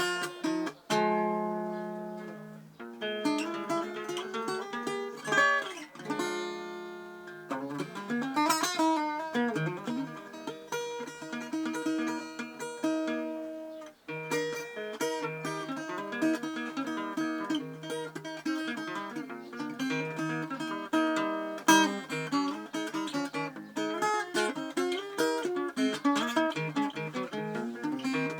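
Guitar being played: runs of picked notes mixed with strummed chords, with a brief break about halfway through.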